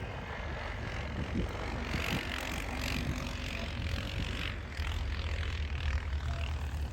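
Polaris Sportsman 450 ATV engine droning steadily from far off as it rides through snow.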